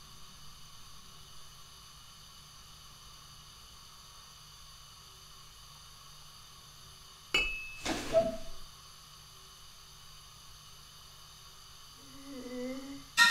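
Quiet room hiss, broken about seven seconds in by a sudden sharp clink with a brief high ring and a second knock just after. Near the end a short wavering pitched sound rises, cut off by a loud sudden burst.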